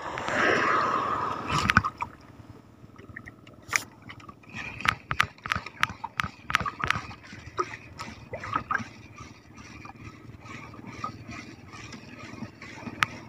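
Water sloshing and splashing around a small outrigger fishing boat, with a louder splashing rush in the first couple of seconds. After that comes a run of light, irregular clicks and taps.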